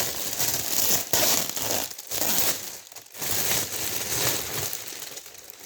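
Plastic packaging crinkling and rustling as an airsoft suit is handled and pulled out of its bag. It comes in several bursts and grows quieter near the end.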